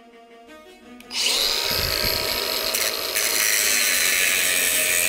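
Angle grinder with an aluminium-specific cut-off disc spinning up about a second in with a quick rising whine, then running steadily as it cuts into the cast aluminium bellhousing of a Nissan CD009 transmission.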